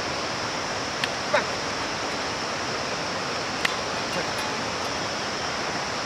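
Steady rushing of a nearby mountain stream. A short falling call cuts through about a second and a half in, and a sharp click a little past halfway.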